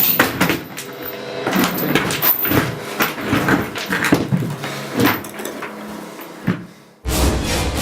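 Irregular knocks, clicks and handling noises, like doors or cupboards being worked, with no speech. Loud music cuts back in suddenly near the end.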